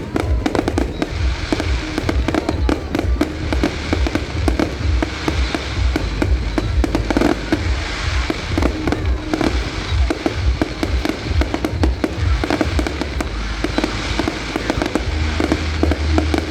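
Fireworks going off in rapid, dense volleys of bangs and crackling pops, with music and a steady deep bass underneath; the bass grows stronger near the end.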